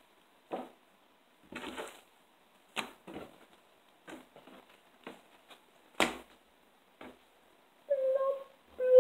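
Slime being stretched, patted and spread on a wooden tabletop: soft sticky clicks and squelches about once a second, with one sharper click about six seconds in. Near the end, as the slime is pulled up into an air bubble, two short pitched squeaks.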